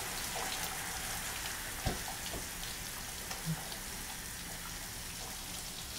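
Overhead shower running: a steady spray of water pouring down onto a person and the shower floor, with a soft thump about two seconds in.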